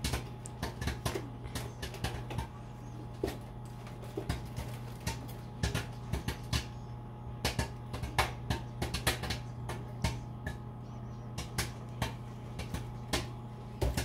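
Microwave popcorn popping inside the bag with irregular sharp pops, sparse at first and coming more often after about five seconds, over the steady hum of the running microwave oven.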